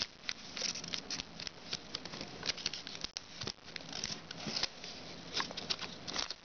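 Pleated origami paper rustling and crackling in the hands as its edge is folded down and creased, a dense run of small irregular crinkles and ticks.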